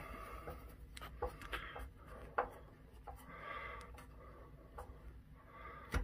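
Screwdriver tightening the last mounting screw of a safe lock body into the steel door: faint scraping with a few light clicks, the sharpest about two and a half seconds in.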